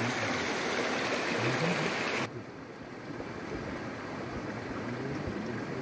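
Steady rush of a flowing stream. About two seconds in the sound abruptly turns duller and quieter.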